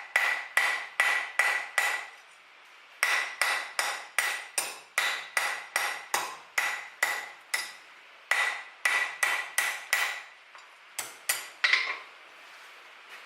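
Hand hammer striking hot steel bar on an anvil in steady ringing blows, about two to three a second, in runs broken by short pauses, with a few last blows near the end. The smith is rolling the bar's stem and hammering it round and smooth.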